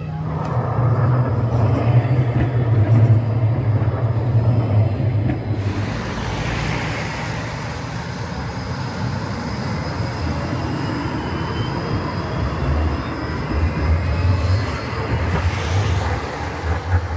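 Škoda 26T low-floor electric tram running past on street track: steady rumble of wheels on the rails, with a faint whine from the drive that slides in pitch near the end.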